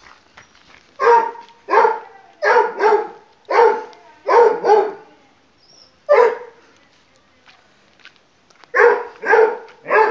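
Pug puppy barking: about eleven short, sharp barks, some in quick pairs, with a pause of a couple of seconds before a final run of three.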